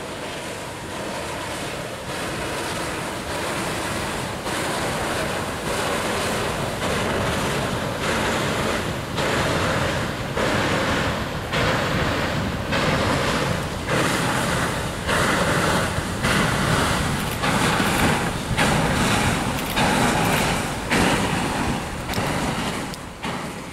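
Lake water splashing against the embankment in a regular rhythm, about once a second, growing louder: the wake of a passing paddle steamer breaking along the shore, with wind on the microphone.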